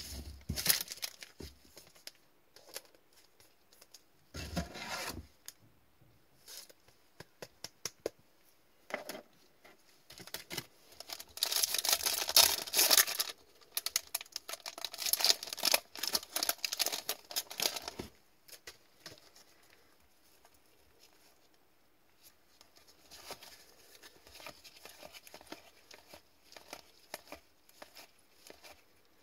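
A foil hockey card pack wrapper being torn open by gloved hands: a long run of loud crinkly tearing about halfway through. Near the end come softer ticks and rustles as the cards are slid and flipped through.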